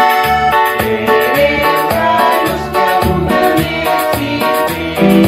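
Music: a keyboard-led passage of a Spanish-language church hymn with a steady beat.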